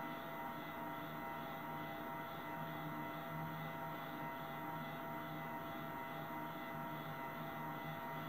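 Nanotec stepper motors energised and driven, giving a steady electrical hum made of several steady tones, with a faint, evenly pulsing higher whine.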